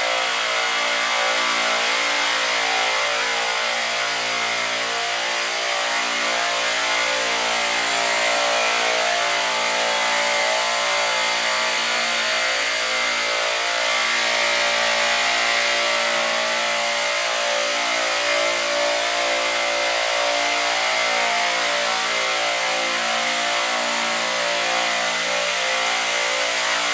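Refrigeration compressors running in a machine room: a loud, steady mechanical hum with a hiss over it that holds even throughout.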